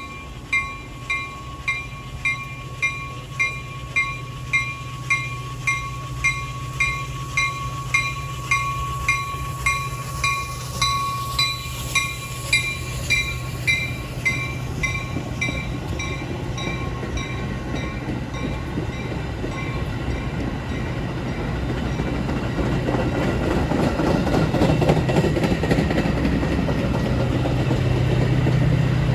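Railroad grade-crossing bell ringing in steady strokes, about one and a half a second, which fade out about halfway through. Meanwhile an approaching train's rumble builds and grows louder toward the end.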